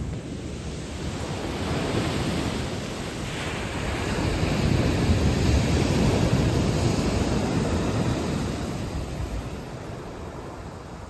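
Ocean waves washing onto a pebble beach: the surge builds to its loudest around the middle, then draws back and fades.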